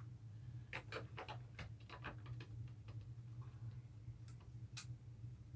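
Faint clicks and taps of a toy model locomotive being handled and turned around on the track: a quick run of them about a second in, then two sharper ticks near the end, over a steady low hum.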